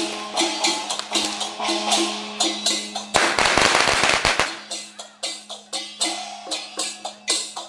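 Festival percussion playing a fast, even beat of struck strokes. About three seconds in, a string of firecrackers goes off in a dense crackle for about a second and a half, the loudest thing heard.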